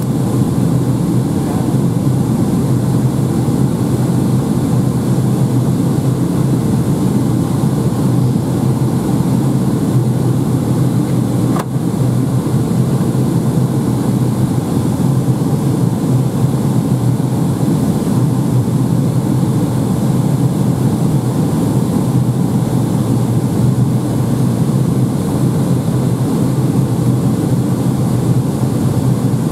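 Steady cabin noise inside a Boeing 757-200 in flight: the jet engines and rushing air heard through the fuselage as an even roar over a constant low hum. A single faint click sounds about twelve seconds in.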